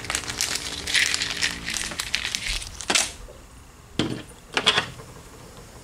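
Crinkling of a small plastic hardware package being handled, then three sharp clicks of small metal pieces, a bolt and fishing swivels, set down on a tabletop.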